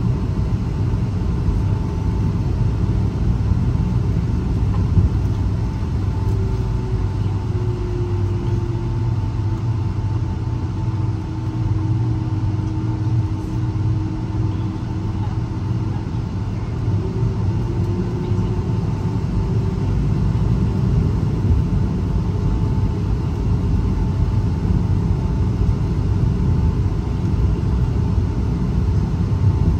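Inside an airliner cabin, the steady low rumble of a Boeing 757's jet engines, with a faint hum that dips a little in pitch and comes back up.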